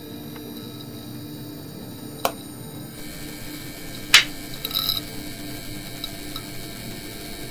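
Steady mechanical whirring and rattling over a hum, broken by a sharp click about two seconds in and a louder clapperboard snap about four seconds in, followed by a few small crackles.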